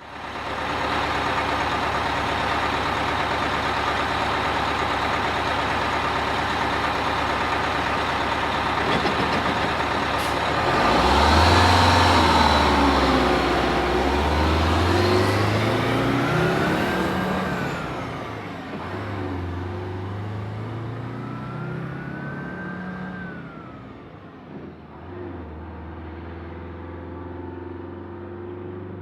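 Bus engine running with a steady rush of noise, then pulling away. About eleven seconds in, the engine note climbs, drops at a gear change and climbs again, then settles lower and quieter as the bus moves off.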